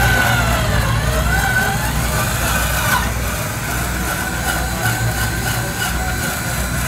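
Tamiya Unimog RC crawler's electric motor and gearbox whining as it creeps over dirt, the pitch sagging and rising with the throttle and then holding steady. A low, steady engine-like rumble runs underneath.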